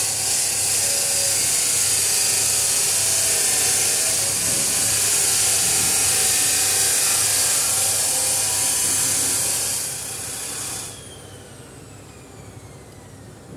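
A pneumatic tool running with a loud, steady hiss and whir, stopping about eleven seconds in, its whine falling away as it spins down.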